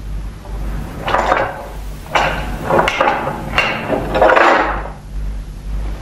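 Nunchaku being swung: five sharp swishing strikes in quick succession, each dying away quickly, over a low steady hum.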